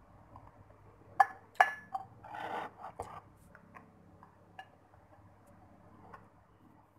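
Plastic spoon knocking twice against a ceramic plate, the second knock leaving a short ring. This is followed by about a second of scraping and a few lighter taps as noodles are scooped from the plate.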